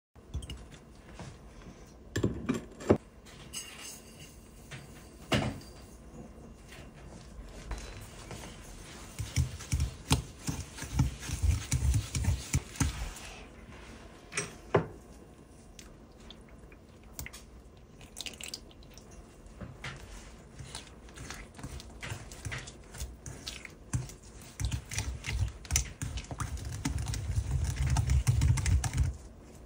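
Egg yolks, sugar and butter being mixed by hand in a glass bowl: scattered clicks and knocks of the utensil against the glass, and stretches of stirring that grow louder near the end.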